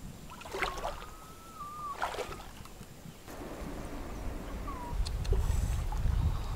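Water splashing as a gill net is hauled hand over hand out of a shallow river, with two sharp splashes about half a second and two seconds in. A thin whistling note is heard between them and briefly again later, and a low rumble builds near the end.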